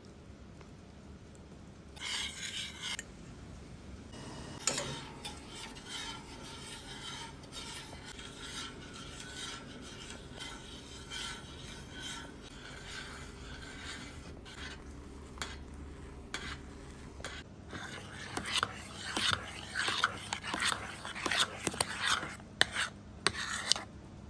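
Kitchen utensils scraping, stirring and clinking against a bowl or dish, in short repeated strokes with a sharp knock about five seconds in. The strokes come faster and louder over the last several seconds.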